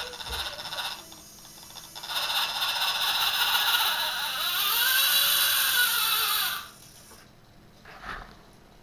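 Six-wheeled RC scale crawler's electric motor and gear drivetrain whining as it drives. The whine dips for a moment near the start, then runs loud with a pitch that rises and falls, and cuts off after about six and a half seconds.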